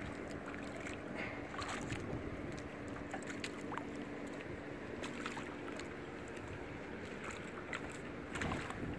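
Wind and choppy lake water around a small fishing boat, with a faint steady low hum and scattered small clicks and splashes.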